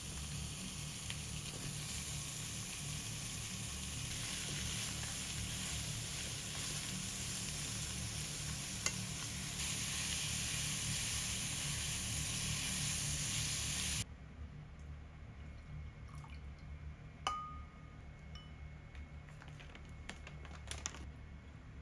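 Food sizzling on the stove, a steady hiss that cuts off abruptly about fourteen seconds in. It is followed by quieter kitchen handling with a few light clicks and clinks.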